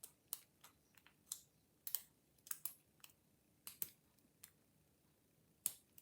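A lock pick and tension tool working the pin tumblers of a 50mm Avocet brass padlock: faint, irregular small clicks and ticks, about a dozen spread unevenly.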